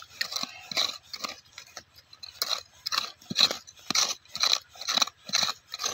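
A hand tool scraping and digging into stony ground in quick repeated strokes, about two a second.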